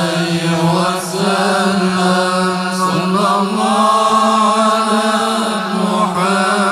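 A group of men chanting Arabic sholawat together, unaccompanied, in long, drawn-out notes that bend up and down.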